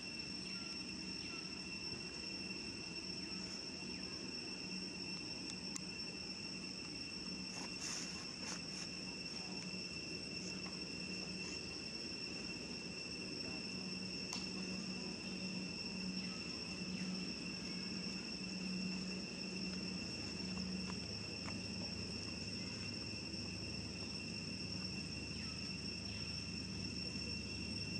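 Steady, unbroken high-pitched insect drone, one held tone with a fainter overtone above it, with a few faint clicks about eight seconds in.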